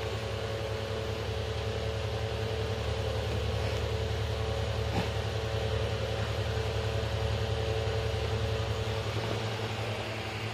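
A steady mechanical hum: a low drone and a fainter mid-pitched tone over an even hiss, swelling slightly in the middle and easing off near the end. There is a faint tick about five seconds in.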